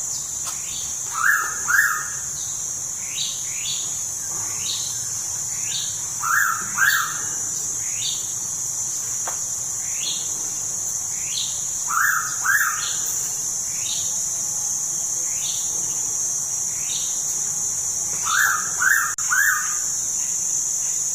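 Pitta calling a loud double whistle, two short notes half a second apart, repeated about every six seconds, with three notes in the last call. Underneath runs a steady high insect drone and a string of short falling chirps from another bird.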